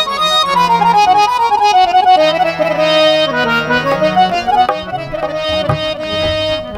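Instrumental break in a live Punjabi song: a melody on a reedy keyboard or harmonium sound that steps downward and then holds long notes, over sustained bass notes.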